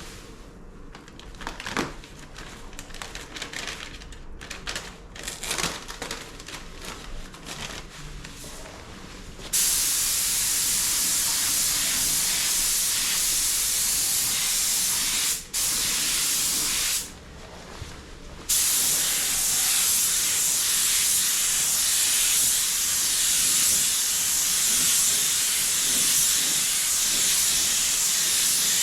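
Air-fed paint spray gun hissing steadily as it sprays paint, starting about a third of the way in after some quiet handling clicks. The spray stops for a moment once, then pauses again for a second or two before running on.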